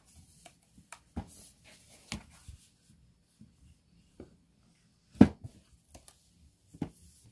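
Unboxing handling sounds: scattered knocks and clicks with brief rustling as packaging and the boxed device are handled, the loudest knock about five seconds in and another shortly before the end.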